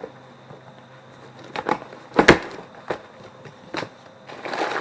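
Knocks and thuds from handling flat-pack cabinet parts and their box, the loudest a little over two seconds in, followed near the end by the rustle of packaging being pulled open.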